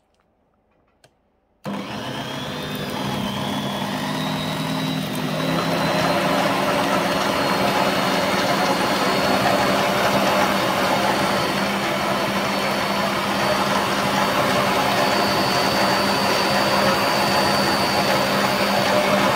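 Electric stand mixer switching on about a second and a half in and running steadily, its beaters working a mixture in a glass bowl. A high motor whine rises in pitch over the first few seconds as it comes up to speed, then holds steady.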